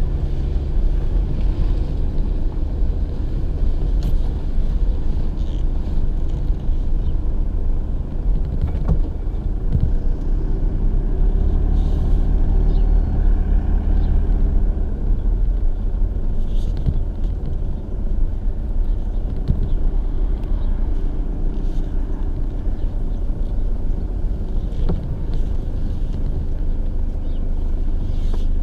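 Vehicle engine running at low speed while driving over a rough farm track, heard from inside the cab, with a few sharp knocks and rattles now and then.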